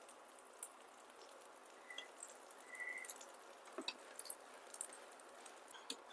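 Faint sizzle of a pesarattu (green gram dosa) cooking in a pan, with a few light clicks and scrapes of a metal spatula against the pan about four seconds in and again near the end.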